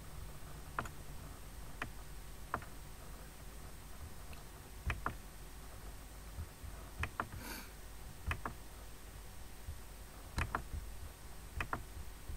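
Computer mouse clicks, some single and some in quick pairs, every second or few, over a low steady hum; a brief hiss about halfway through.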